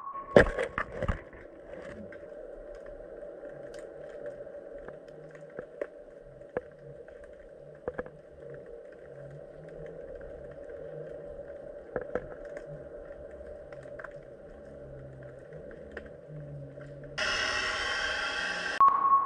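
Underwater sound picked up by a submerged camera: a steady muffled hiss with scattered clicks and taps, after a few loud knocks in the first second. Near the end, a much louder, fuller sound cuts in abruptly.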